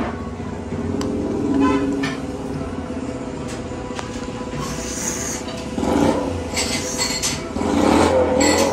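A person slurping ramen noodles in several short noisy bursts, the loudest near the end, over steady background music.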